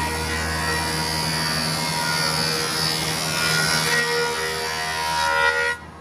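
Cantek 37-inch jointer/planer with spiral top and bottom cutterheads running as a wide board feeds through it, a steady loud machine noise. It cuts off suddenly near the end.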